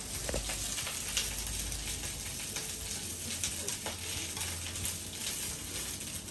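Green vegetables sizzling in a frying pan over medium heat, with scattered light clicks from stirring with chopsticks.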